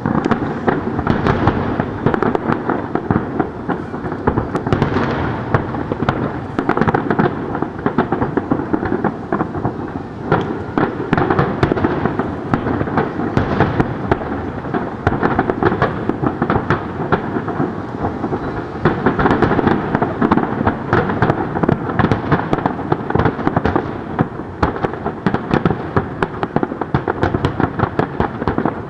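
Aerial display fireworks shells bursting in a dense, continuous barrage of bangs and crackling, with no break.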